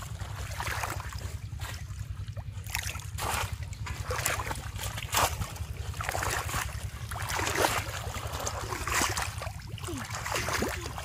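Shallow muddy pond water sloshing and splashing in irregular bursts as a bamboo polo fish trap is pushed into the pond bed and hands grope through the mud. A steady low rumble runs underneath.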